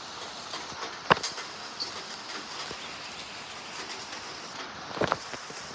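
Rain falling in a steady hiss, with a few sharp taps of big raindrops striking nearby, the loudest about a second in and a cluster near the end.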